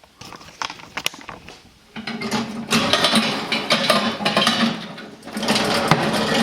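Popcorn machine being handled after popping: a few sharp clicks, then from about two seconds in a dense rattling clatter over a steady low hum, with a short break just past five seconds.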